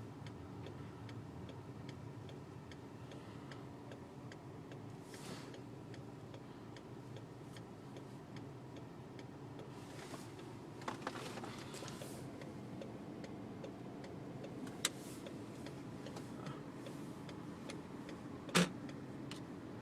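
Car indicator clicking steadily over the low hum of an idling car heard from inside the cabin, with a few sharper clicks or knocks now and then.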